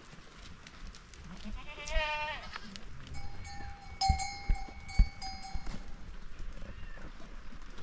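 Sheep bleating: a short quavering bleat about two seconds in, then a longer, steadier high call, with a couple of sharp knocks.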